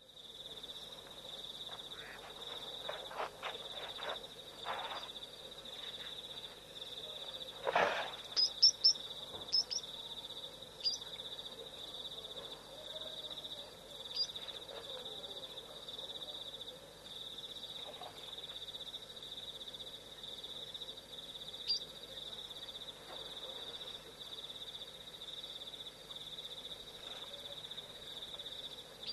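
Night insects trilling in a steady, high, pulsing chorus. A few short sharp chirps and knocks stand out around eight to ten seconds in, with single ones later.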